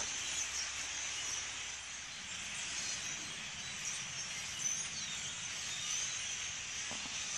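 A large flock of starlings chattering together: a steady, dense mass of high squeaks and whistles.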